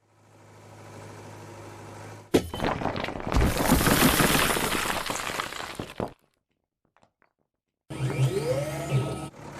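Cartoon sound effects: a wheel loader's engine hums, then a sharp crack is followed by about three and a half seconds of loud crunching and shattering as a surprise egg is broken open, cutting off suddenly. After a short pause the engine sound returns with a whine that slides up and down.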